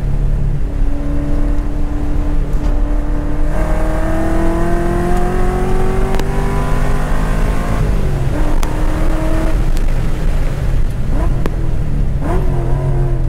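Corvette Grand Sport's 6.2-litre V8, heard from inside the cabin at full throttle on track: the engine note climbs steadily for about four seconds, then drops away as the driver lifts and brakes. Brief rev swings near the end fit downshifts.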